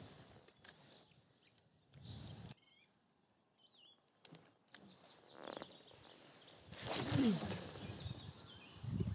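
Outdoor lakeside quiet with a few faint, short bird chirps in the middle, then a loud rushing hiss lasting about two seconds near the end.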